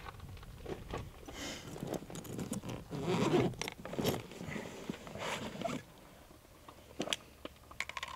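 Hands rummaging in a soft nylon Tuff Products range bag: fabric rustling and scraping, loudest about three seconds in. A few short sharp clicks follow near the end.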